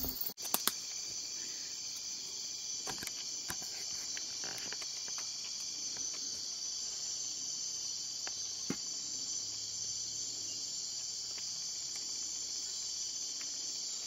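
Steady, high-pitched chorus of night insects, with a few scattered light clicks.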